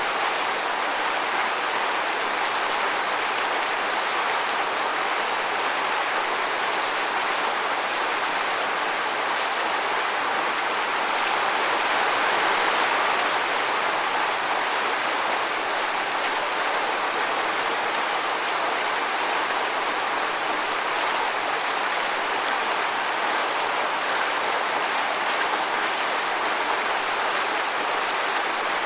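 Waterfall: water falling and rushing in a steady, even roar of noise.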